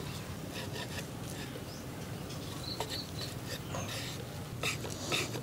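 Faint taps and scrapes of a knife slicing through a stack of soft neer dosas onto a wooden chopping board, more of them in the second half, over a faint steady background.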